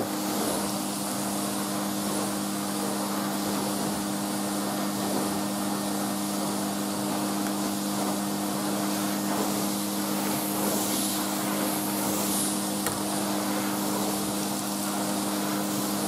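Numatic Henry HVR200A canister vacuum cleaner running on its low power setting: a steady two-note motor hum with a hiss of airflow, as the floor tool is pushed back and forth across a carpet.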